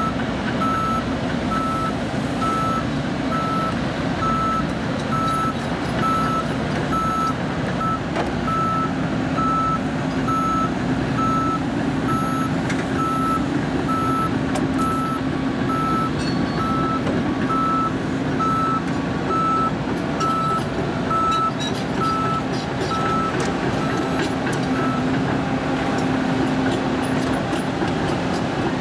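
Deere 710L backhoe loader's diesel engine running steadily while its backup alarm beeps in an even rhythm as the machine reverses; the beeping stops a few seconds before the end.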